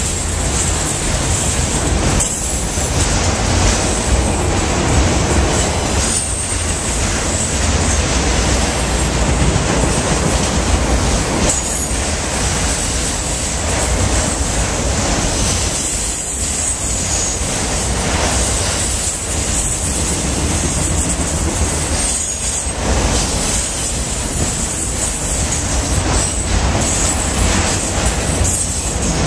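Freight train of autorack cars rolling past: steady rumble and rattle of steel wheels on the rails, with a thin high wheel squeal over it.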